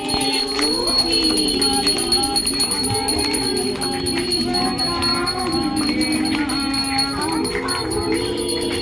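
Hindu devotional song: singing over music with jingling, rattling percussion, steady throughout.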